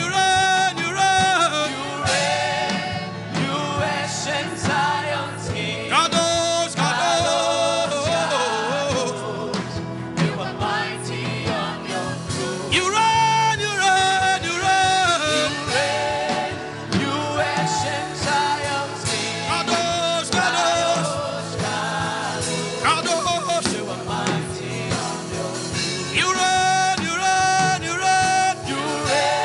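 Gospel worship music: singing over instrumental backing, with sustained, sliding sung notes.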